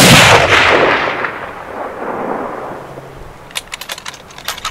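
A single rifle shot, a sharp crack whose echo rolls away and fades over about three seconds. Near the end comes a quick run of sharp clicks.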